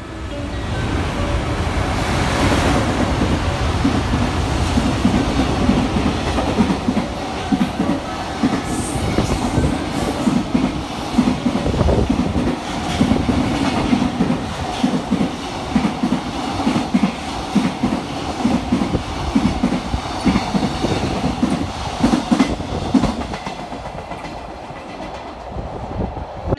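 Freight train hauled by an electric locomotive passing through a station without stopping. It builds up loud over the first two seconds as it approaches, then a long string of container wagons goes by with a steady, rhythmic clickety-clack from the wheels, which eases off near the end as the train draws away.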